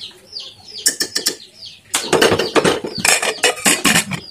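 A spoon clinks against an aluminium pressure cooker, then the cooker's lid is fitted and closed with a run of loud metallic clattering and scraping from about two seconds in. Birds chirp faintly in the background.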